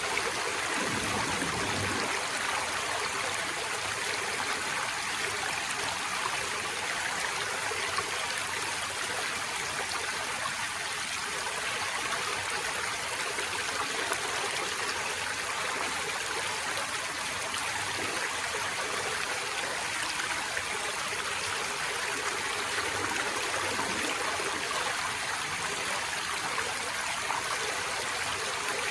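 Forest stream flowing steadily, an even, unbroken rush of water, mostly in the higher range with little low rumble.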